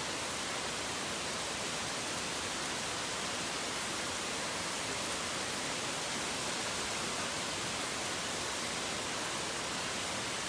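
Steady rain falling, an even hiss that does not let up, with no thunder or birdsong heard.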